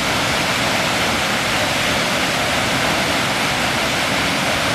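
Waterfall in a rock canyon, a steady rush of falling water.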